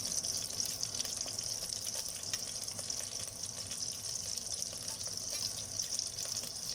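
Garlic sizzling in melted butter in a pan: a steady hiss with small crackles.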